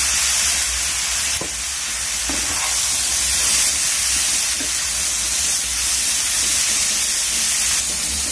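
Mustard oil sizzling in a kadai as red lentils, fried potatoes and soya chunks are stirred with a spatula. A steady frying hiss, with a few faint knocks and scrapes of the spatula against the pan.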